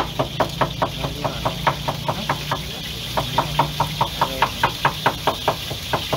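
Fast, even knocking from a cook's utensil, about five strokes a second with a short break about halfway through. A steady low hum runs underneath.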